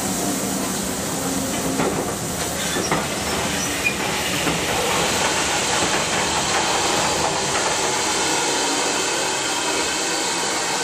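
A heritage railway train running slowly, heard from alongside the carriage: a steady hiss of running noise with a few clicks of wheels over rail joints in the first few seconds.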